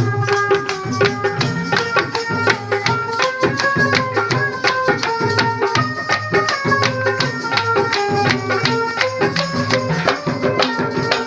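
Instrumental interlude of a devotional bhajan: a held, stepping melody over steady hand-drum rhythm and jingling rattle percussion.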